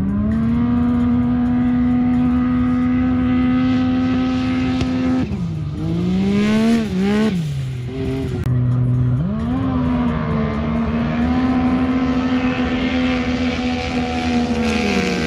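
Side-by-side UTV engine at full throttle, held at a steady high pitch for about five seconds, then dropping off with a few quick throttle blips. It winds up again and holds high revs for another five seconds, falling away at the end.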